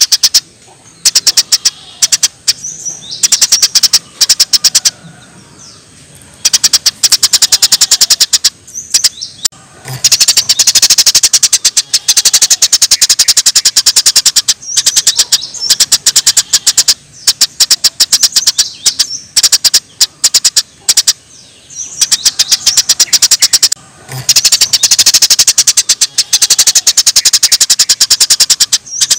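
Small songbird's rapid-fire 'tembakan' song: bursts of a few seconds each of very fast, high-pitched repeated notes, separated by short pauses.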